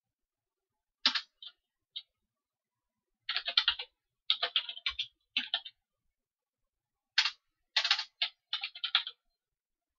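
Computer keyboard typing: several short runs of quick keystrokes with pauses between them.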